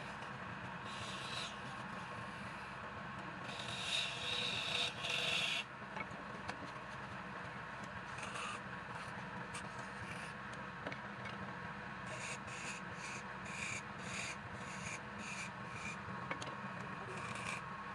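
Wood lathe running with a steady motor hum while a tool or abrasive rubs against the spinning wood in scraping spells. A longer, louder spell comes about four seconds in, and later a run of short strokes about twice a second.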